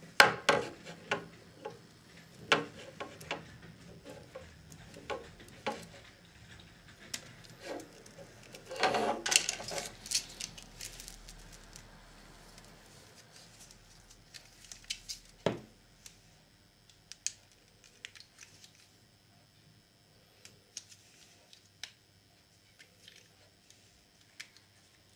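Plastic power adapter and its cable being handled on a tabletop: a string of small clicks, knocks and rustles, busiest in the first ten seconds, then only occasional light clicks.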